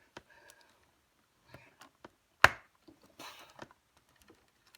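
Objects being handled and set down on a desk: scattered light clicks and rustles, with one sharp knock about halfway through.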